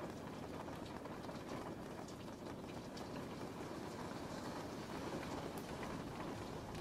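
Steady rain with a low rumble underneath and faint scattered drop ticks.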